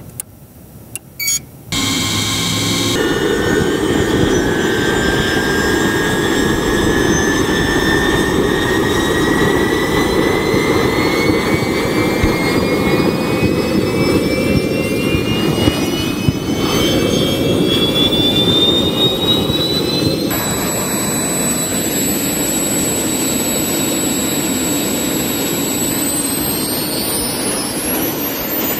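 Three small jet engines on a go-kart starting up: a few clicks, then a loud rushing roar from about two seconds in, with high whines that climb steadily in pitch as the turbines spool up and then hold steady near the end.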